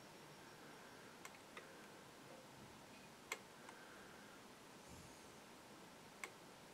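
Near silence: room tone with a few faint, scattered ticks, the clearest about halfway through.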